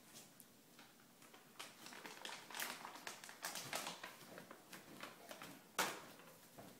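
A Pomeranian's paws tapping and scuffling on a hardwood floor as it fusses at its booties: a run of faint, irregular clicks, with one sharper knock about six seconds in.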